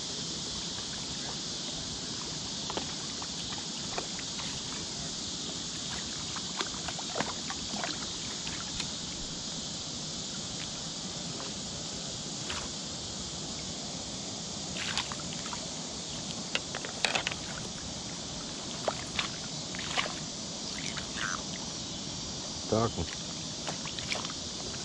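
A steady, high-pitched insect chorus, with scattered splashes and sloshes of water that grow more frequent in the second half as a rainbow trout thrashes in a landing net.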